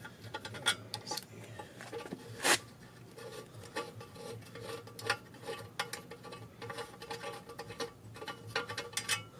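Scattered metallic clicks and clinks of hand tools working on a BMW M54B30 engine during teardown, with one sharper knock about two and a half seconds in, over a faint steady hum.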